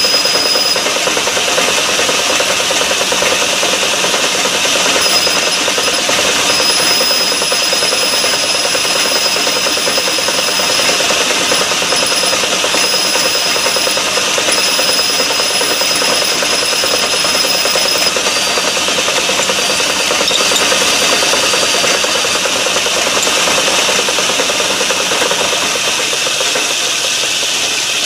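Metal lathe running while a twist drill fed from the tailstock drills into the spinning workpiece, a pilot hole one size under 3/8 inch for a model steam engine cylinder. It makes a steady machining noise with a high whine that comes and goes.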